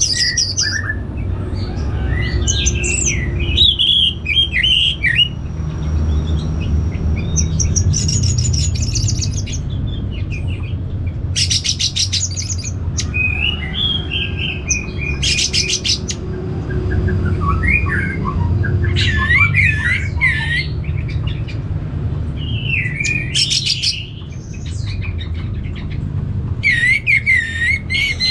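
Orange-headed thrush (anis merah) singing loudly: a varied run of whistled and warbled phrases, broken several times by bursts of fast rattling notes, over a steady low rumble.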